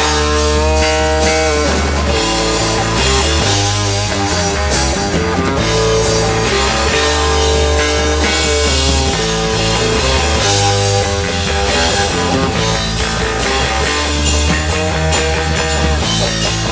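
Rock band playing an instrumental passage: electric guitar lines over bass and drum kit, loud and steady, with no singing.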